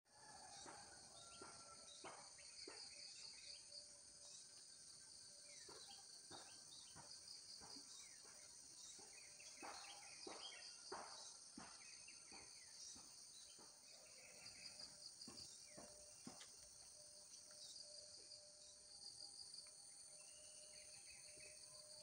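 Faint outdoor morning chorus: a steady high-pitched trilling of crickets and other insects, with birds giving short chirps and quick sweeping calls scattered throughout.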